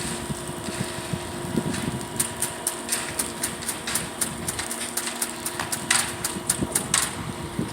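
Truck engine running steadily, with a scatter of light, sharp clicks and taps from about two seconds in.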